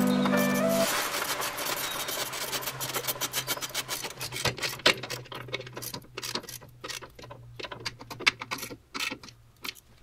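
Socket ratchet clicking in rapid runs as the expansion tank's mounting bolts are run down; the clicks come thick at first and thin out toward the end.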